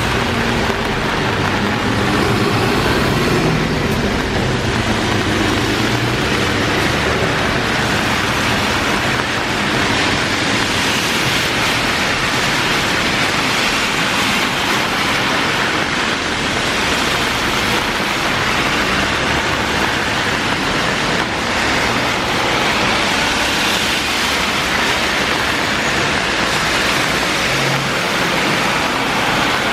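Heavy rain pouring steadily, with cars passing on the wet road; a vehicle's engine is heard in the first several seconds.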